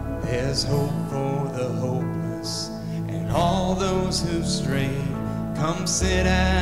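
Worship music from a live church band: guitar over sustained bass notes that change chord every second or two.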